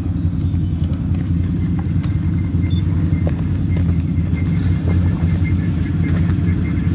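ATV (quad bike) engine running steadily at low revs as the quad crawls over a rocky trail.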